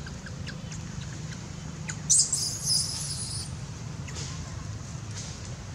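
Baby long-tailed macaque giving a high-pitched, wavering squeal about two seconds in, lasting about a second and a half, over a steady low background hum.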